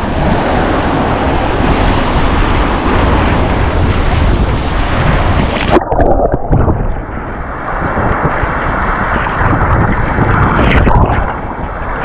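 Rough sea surf rushing and breaking, with wind buffeting the microphone as a low rumble. About halfway through, the high hiss drops away abruptly while the rush carries on.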